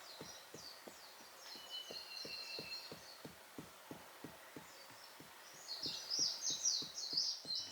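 Small birds chirping and trilling in two bouts, the second louder near the end, over a faint, steady ticking about three times a second.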